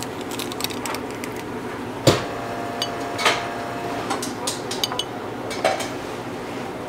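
Stainless steel ice cream scoop knocking and clinking against a glass dessert cup as strawberry sherbet is dropped in. A sharp clink about two seconds in leaves the glass ringing briefly, and lighter clicks of the scoop and glass follow over a steady background hum.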